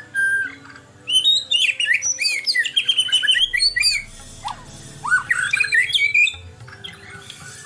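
White-rumped shama singing: two quick runs of varied, sliding notes, the first about a second in and the second about four and a half seconds in, with a few shorter notes near the end.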